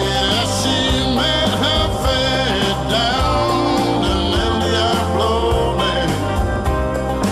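Blues-rock band music: drums and bass keep a steady beat under a lead line that bends in pitch.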